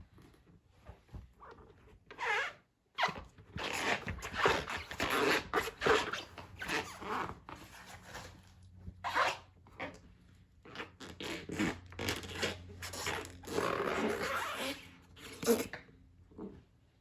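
Rubber of Shibata waders rubbing and squeaking in a run of irregular strokes, each under a second long.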